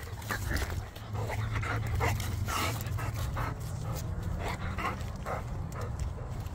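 Dog panting in short, irregular breaths while walking on a leash, over a steady low rumble.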